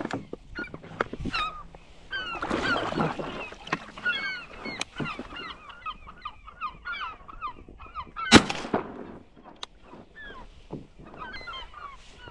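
A flock of geese calling, many short honks overlapping, busiest a couple of seconds in. One loud, sharp bang a little past eight seconds in stands out above them.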